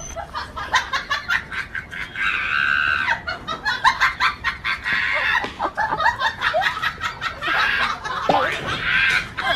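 Chickens squawking and clucking in agitated bursts, mixed with short knocks and rustles of a scuffle.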